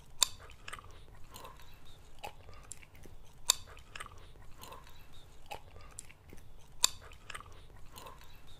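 A person chewing and biting food close to the microphone: a steady run of small wet mouth clicks, with three louder sharp bites about three seconds apart. A low steady hum sits underneath.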